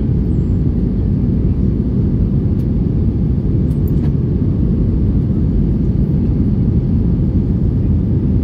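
Steady, even rumble of engine and airflow noise inside the passenger cabin of an Airbus A320 airliner in flight, heavy in the low end.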